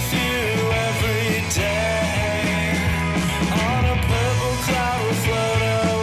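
Rock song with a singing voice over a full band.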